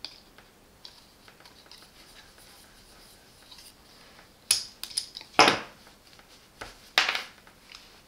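Red plastic Parkside PKXA 2 A1 cable stripper being squeezed and rotated around a thin electrical cable to cut its insulation: faint plastic clicks at first, then a few louder short clicks and scrapes from about halfway in and again near the end.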